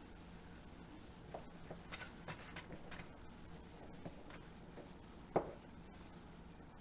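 Faint, scattered small clicks and taps of someone eating, with one sharper knock about five and a half seconds in.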